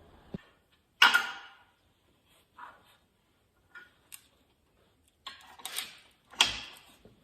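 Metal tools and small parts clinking and knocking against a Turbo 350 transmission during a rebuild: a handful of separate sharp clanks, the loudest about a second in and a cluster near the end, one with a dull thud.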